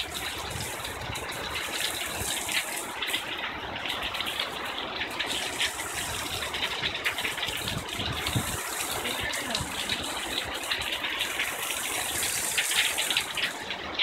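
Heavy downpour: steady, dense rain with water gushing off a roof edge and splashing down.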